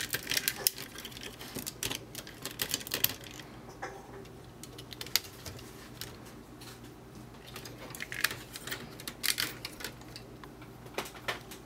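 Plastic clicks and snaps from Masterpiece Transformers figures' hinged chest panels being worked open by hand, first MP-10 Optimus Prime, then MP-28 Hot Rodimus, then MP-22 Ultra Magnus. The clicks come in several short clusters, with quieter gaps between them.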